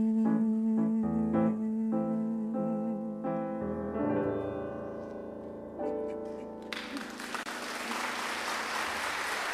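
Piano playing the closing bars of a slow chanson, slowing to a last couple of sustained chords that die away. Audience applause breaks out about two-thirds of the way through and continues.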